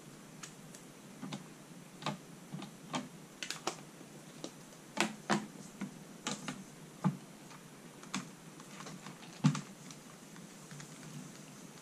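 Irregular light clicks and taps of plastic parts being handled on a stamping platform: its clear hinged lid and the stamp being moved and pressed. A sharper knock comes about nine and a half seconds in.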